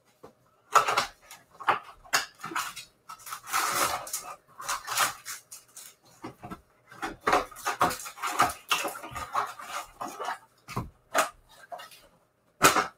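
A cardboard trading-card hobby box being opened, then foil-wrapped card packs crinkling and rustling as they are pulled out by hand and stacked, in irregular bursts with short pauses.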